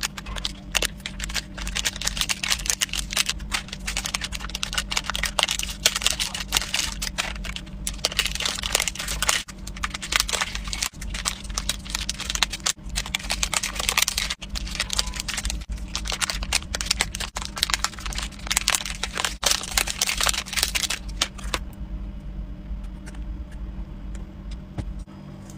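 Foil stick sachets crinkling and crackling as they are torn open and squeezed empty, one after another, in a dense run of small crackles that stops near the end, over a steady low hum.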